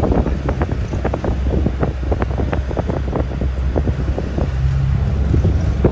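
A car driving fast, heard from inside the cabin: a steady low engine and road rumble with wind buffeting the microphone and many short knocks and rattles.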